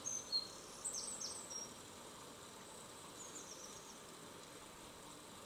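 Outdoor ambience: a faint steady background hiss with birds chirping, a cluster of short high chirps in the first second and a half and a few more about three seconds in.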